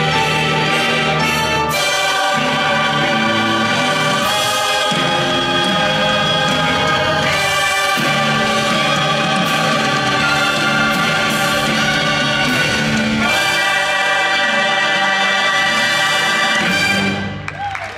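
Choir singing the finale of a stage musical over a full orchestral accompaniment, loud and sustained; the music stops shortly before the end.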